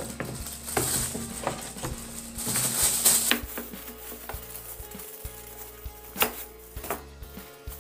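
Thin plastic food bags rustling and crinkling as frozen kibbeh are packed into them, busiest in the first three seconds. After that it goes quieter, with a few sharp taps and clicks, the loudest about six seconds in.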